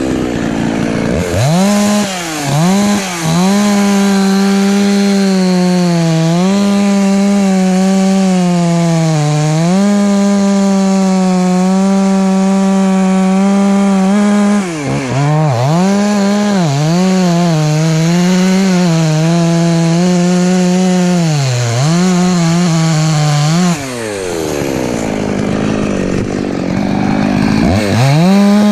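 Husqvarna 254 two-stroke chainsaw running near full throttle, its pitch dipping and recovering again and again as it bogs in the cut. Twice, near the start and near the end, the revs fall away low and climb back up.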